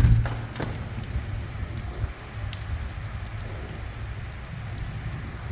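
Heavy rain falling steadily in a thunderstorm. A sharp thump right at the start is the loudest sound.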